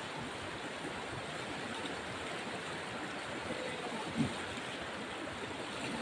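Shallow river water rushing steadily over a low rocky cascade.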